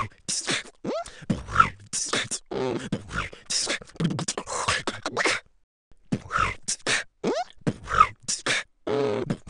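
Beatboxing: a fast rhythm of low vocal thumps and high hissy hits, with a few short upward-sliding tones, dropping out for about half a second midway.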